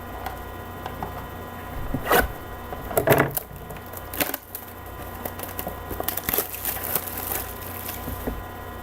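Trading card box and packaging being handled and opened: scattered crinkles, scrapes and clicks, with louder crackles about two and three seconds in and again about six seconds in.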